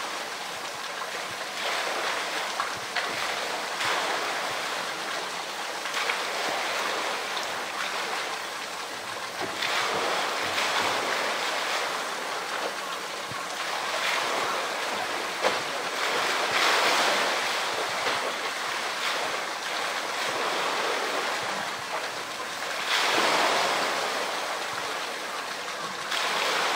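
Pool water sloshing and splashing as a polar bear wrestles a floating blue plastic tank, with louder splashes about ten, seventeen and twenty-three seconds in.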